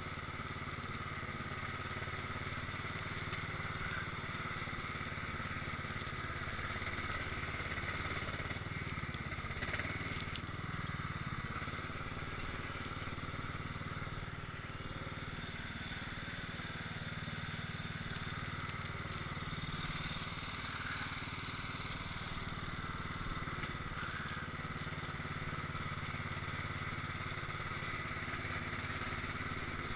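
Cub Cadet XT1 lawn tractor's engine running steadily under load as the tractor pushes heavy snow with its front plow blade.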